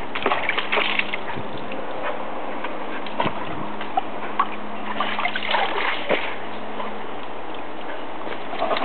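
Water in a plastic paddling pool sloshing and splashing as a Siberian husky puppy paws and snaps at it. The splashes come in irregular flurries, with a few sharper slaps on the water.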